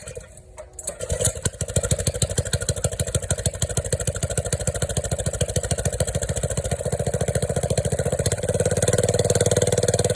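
Engine starting through a newly fitted 6-inch outside-diameter exhaust pipe: it catches about a second in and runs with an even, rapid exhaust beat. About 8 seconds in, it steps up to a louder, fuller note.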